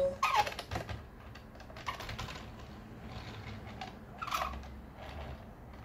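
Light, irregular clicking and rattling of a Lego-brick frame on small plastic wheels as it is pushed and handled on a wooden tabletop. There is a cluster of clicks near the start and another about four seconds in.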